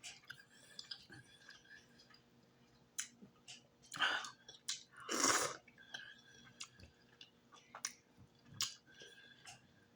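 A person chewing a mouthful of food close to the microphone, with many short wet mouth clicks. A louder noisy burst comes about five seconds in, with a smaller one just before it.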